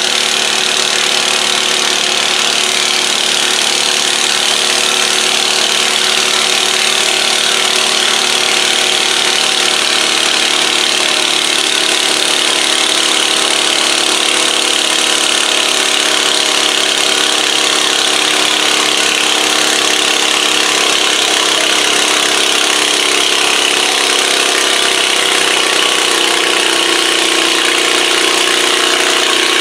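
Garden tractor engine idling steadily, its pitch shifting slightly in the second half.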